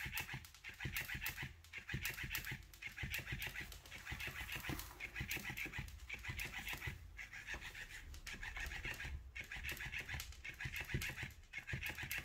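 Electric plush clownfish cat toy's small motor running and flapping its tail on the tabletop: rapid ticking buzz in repeated bursts about a second long, with short pauses between.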